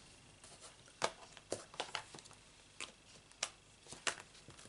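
Light, irregular taps and clicks of die-cut cardstock being handled and picked off clear acrylic cutting plates after a run through a small die-cutting machine.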